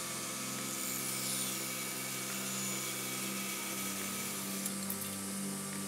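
Table saw running and ripping a walnut board along the fence: a steady motor hum with the even hiss of the blade cutting wood.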